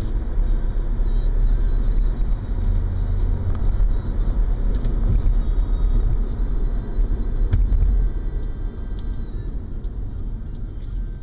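Road and engine noise of a moving car heard from inside the cabin, a steady low rumble that fades off over the last few seconds as the car slows toward a stop.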